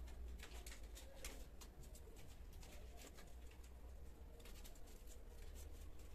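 Faint light clicks and taps of kittens' paws and claws on a tile floor as they wrestle, coming in little clusters, over a low steady hum.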